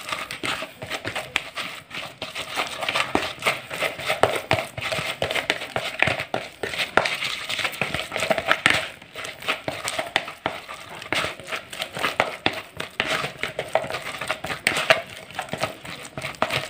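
A hand stirring and kneading a damp, crumbly fish-bait mix in a plastic bowl: continuous irregular scratching and crackling of the mix working against the bowl.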